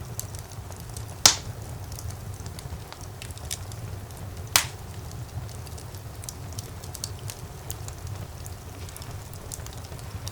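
Wood fire burning in a fireplace: a steady low rumble of the flames with scattered crackles, and two loud sharp pops, one about a second in and another a few seconds later.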